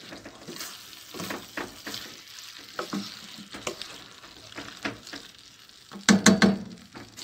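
Beef shawarma with onion, tomato and pepper frying in a metal pan while being stirred: a steady sizzle with irregular scraping strokes. About six seconds in there is a louder, brief clatter.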